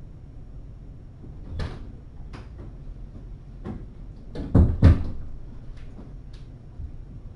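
A string of sharp knocks and clatters, with two loud thumps close together about four and a half seconds in.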